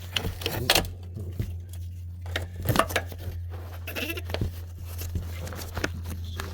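Irregular clicks and knocks of parts being handled as a new rear air suspension spring is worked into its mount, over a steady low hum.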